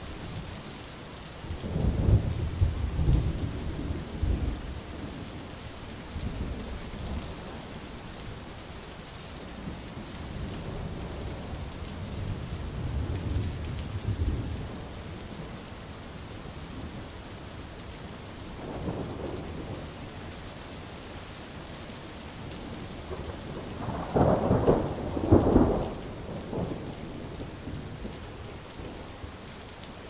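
Steady rain hissing under rolling thunder: a rumble about two seconds in, a fainter, longer one around the middle, a brief one after that, and the loudest peals about three-quarters of the way through.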